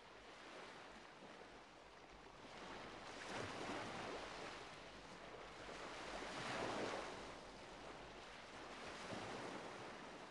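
Faint sea waves washing in slow swells, three times, a few seconds apart.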